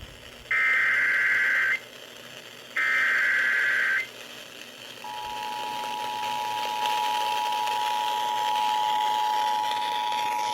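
Emergency Alert System SAME header heard over a radio receiver: the last two of its three bursts of digital data tones, each about a second long with a second's pause between. About a second later the steady two-tone EAS attention signal starts and holds over a light hiss, opening a flash flood warning.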